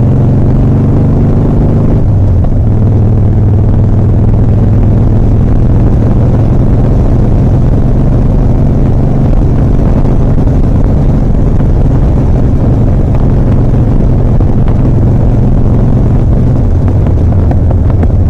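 2007 Harley-Davidson Softail Custom's air-cooled V-twin engine running loud while riding. The engine note changes about two seconds in and again near the end.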